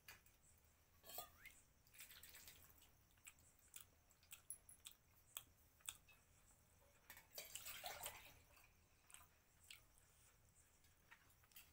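Faint, wet eating sounds: fingers squishing through mutton curry on a plate, and chewing. Scattered small clicks and squelches, with a longer patch of them around seven to eight seconds.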